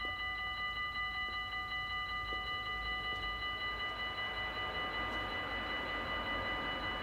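Dutch level-crossing warning bell ringing steadily in rapid, even strokes, the signal that the crossing is closed for a train. From about halfway a rushing noise grows beneath it as a train approaches.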